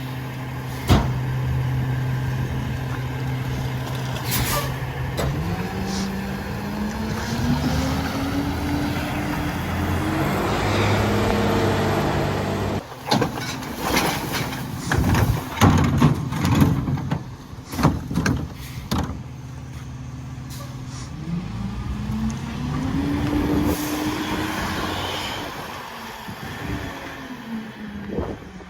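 Freightliner garbage truck's diesel engine, idling steadily and then revving up slowly over several seconds, the way a McNeilus rear loader speeds up its engine to run the hydraulic packer. In the middle there is a run of loud clanks and bangs, then the engine revs up once more and drops back down near the end.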